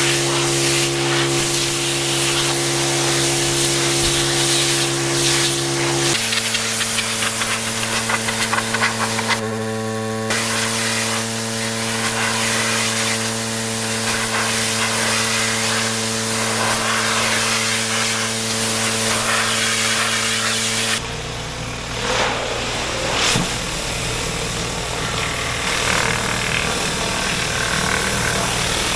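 Pressure washer running, its motor giving a steady hum under the hiss of the water jet spraying the patio. The motor's pitch changes abruptly about six seconds in and again about twenty-one seconds in.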